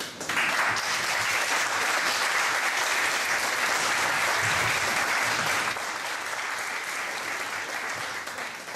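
Audience applauding: the clapping starts suddenly, stays strong for about six seconds, then thins out and fades near the end.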